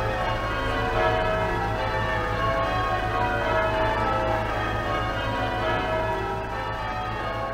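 Church tower bells being rung in changes, the strikes following one another steadily with their tones overlapping.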